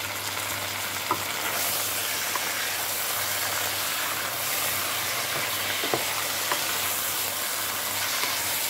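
Beef frying in a hot pot with browned onion, a steady sizzle that swells a little about a second and a half in. It is being stirred, with a few light clicks of the utensil against the pot.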